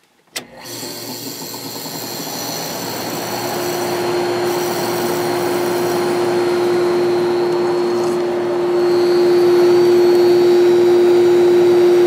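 Vintage Whirlpool 6,000 BTU window air conditioner switched on low with a click: the fan spins up with a growing rush of air, and about three seconds in the rotary compressor starts, adding a steady hum that carries on as the unit gets louder.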